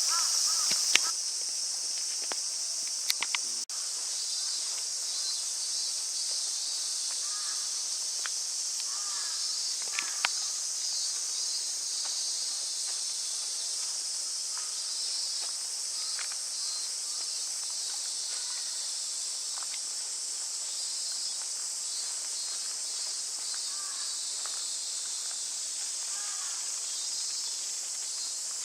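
Steady, high-pitched chorus of insects, with faint bird calls now and then and a few sharp clicks in the first few seconds and again about ten seconds in.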